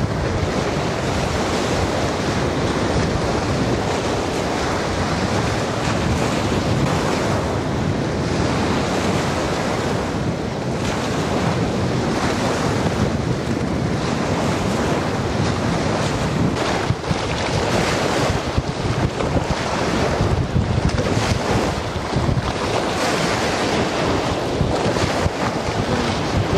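Strong wind buffeting the microphone over choppy waves washing against a concrete reservoir bank: a steady rushing noise.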